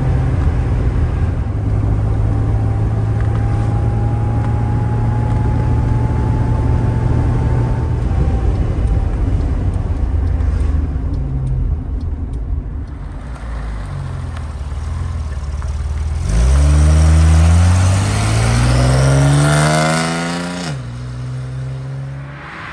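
1970 Mercedes-Benz 280 SL's 2.8-litre inline six-cylinder engine running steadily as the car cruises, heard from inside the cabin. In the last quarter it grows loud and rises steadily in pitch under acceleration, then drops suddenly.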